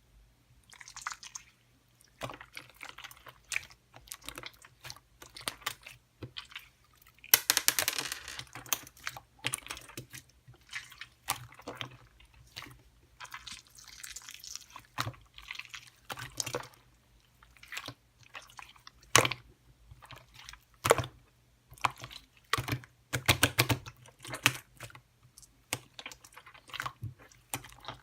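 Irregular wet clicks, crackles and squishes close to the microphone, with denser runs of crackling about seven seconds in and again near the end.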